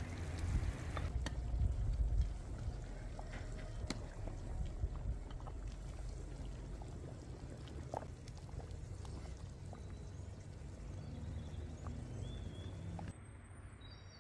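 A ladle scooping stew from a metal pot and pouring it onto a plate, with a wet pouring sound and a few sharp clinks of the ladle against the pot, over a steady low rumble. A few short bird chirps come near the end, where the sound drops quieter.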